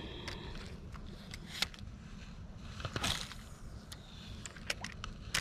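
Spinning rod and reel being cast and handled: a louder swish about three seconds in, then a run of small sharp clicks from the reel, over a steady low rumble.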